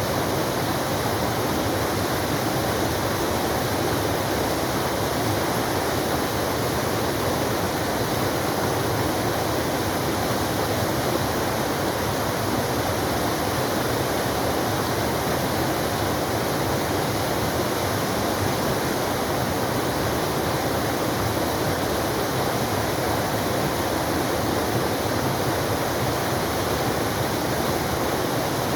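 Forest waterfall: water falling and splashing onto rock, a steady, even rush.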